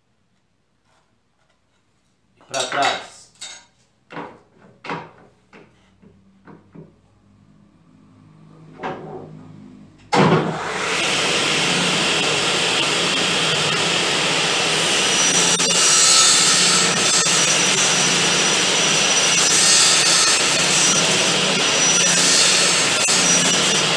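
A few knocks and clatters of wood and tools being handled, then about ten seconds in a table-mounted circular saw is switched on with a sudden loud start and runs steadily as a workpiece is fed over the blade to cut a half-lap notch, the sound swelling a little as the blade bites.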